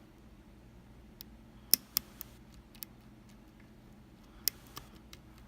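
Sharp, irregularly spaced metal clicks of a lock pick and tension tool working the pins inside a Kaba Quattro S dimple lock, about seven clicks with the loudest near the start and about two-thirds of the way through.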